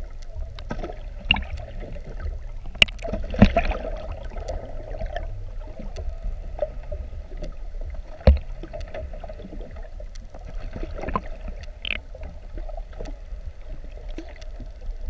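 Underwater sound through a submerged camera in the sea: a steady low rumble of moving water with a constant hum, and scattered sharp clicks and knocks, the loudest about three and a half seconds in and again a little after eight seconds.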